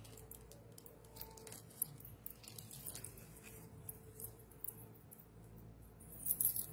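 Faint handling noises: scattered small clicks and rustles as things are picked up and moved, a little busier near the end, over a low steady hum.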